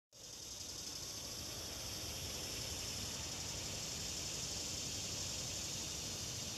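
Steady high-pitched insect drone over a low outdoor rumble, starting abruptly.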